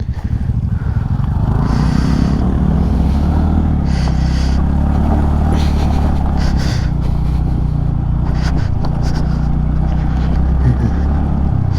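Carburetted motorcycle engine running steadily at low speed on a rough trail through a water crossing, with a few brief rushing, splashing noises. The rider blames a sluggish pickup and heavy vibration on a dirty carburettor, air filter and spark plug.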